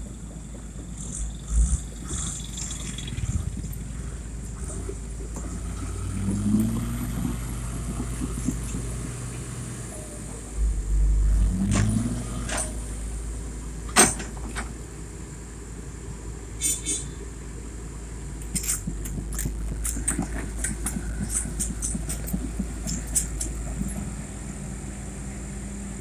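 Diesel tipper truck engine labouring in deep mud, revving up twice, with a sharp knock partway through and scattered clicks and clatter later on.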